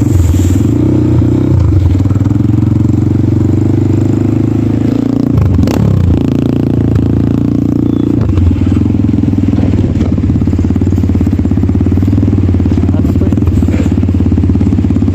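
Kayo T2 dirt bike's engine running steadily under way, its revs dropping and picking back up about six seconds in.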